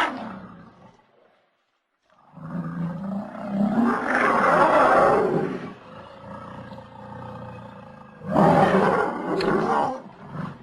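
Elephant calls. The first is a long, loud call of about four seconds that trails into a quieter low sound, and a second loud call begins about eight seconds in.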